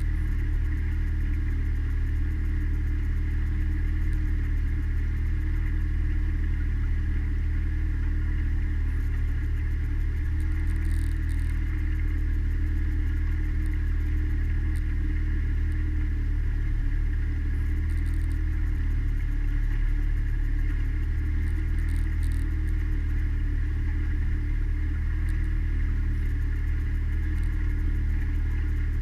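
Mariner outboard motor running steadily as the small cruiser moves along under way, a constant low engine hum with no change in pitch or level.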